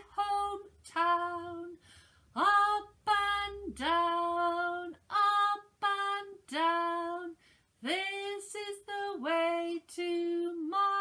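A woman singing a simple children's action song unaccompanied, in short held notes with brief gaps between them.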